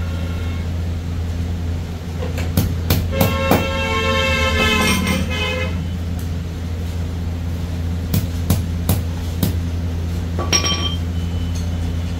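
A vehicle horn sounds for about three seconds over a steady engine hum. A second, shorter and higher-pitched horn follows near the end, and a few sharp knocks come between them.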